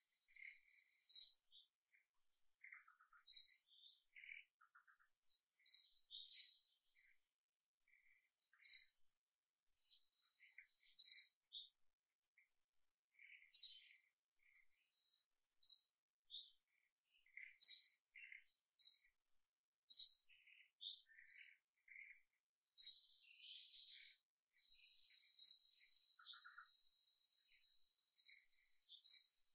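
A bird giving short, sharp, high-pitched chirps, one every second or two, over a faint steady high-pitched whine.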